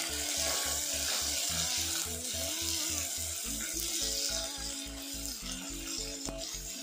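Sliced onions and green chillies sizzling steadily in hot oil in an enamelled cast-iron Dutch oven, stirred with a wooden spatula, under background music with a steady beat.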